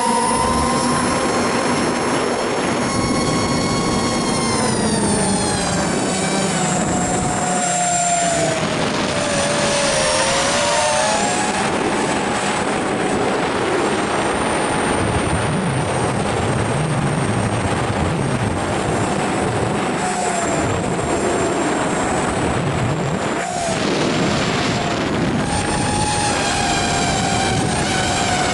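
RC model airplane's motor and propeller whining in flight, heard from the onboard camera: the pitch sinks several seconds in, then climbs and holds as the throttle changes. Wind rushes over the microphone throughout.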